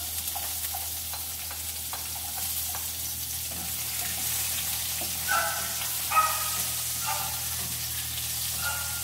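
Chopped onions sizzling as they sauté in a nonstick frying pan, stirred with a spatula that scrapes against the pan a few times, the loudest scrape about six seconds in.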